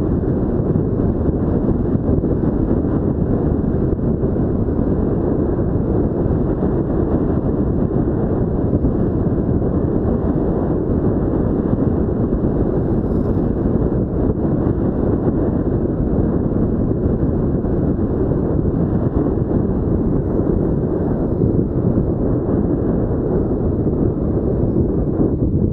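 Steady wind rush buffeting an action camera's microphone, with road noise, while riding along a road at around 40 km/h.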